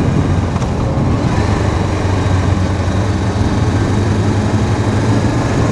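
Honda CBR500's parallel-twin engine running at a steady speed while the motorcycle is ridden, with a constant engine hum over road noise.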